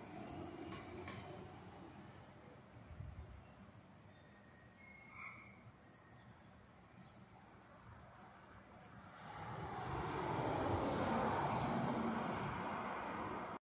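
Insects chirping: a steady, high-pitched pulsing trill with a lower chirp repeating about every two-thirds of a second. About nine seconds in, a motor vehicle's rumbling noise swells up and holds.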